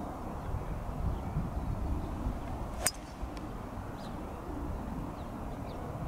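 Golf club striking the ball on a long fairway shot: one sharp click about three seconds in. Strong wind rumbles on the microphone throughout.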